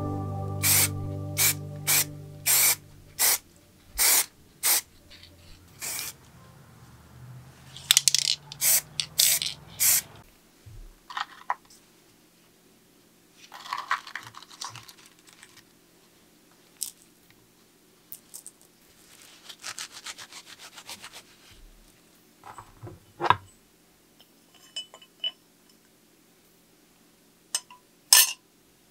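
Hand work on a bicycle crankset: about eight short hissing spray bursts in the first few seconds, then several stretches of rubbing and scraping, with scattered clicks and knocks, the loudest near the end.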